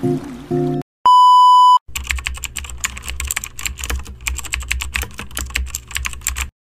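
Music cuts off, then a loud steady beep about a second in lasts under a second. It is followed by a computer-keyboard typing sound effect of rapid key clicks over a low hum, which stops just before the end.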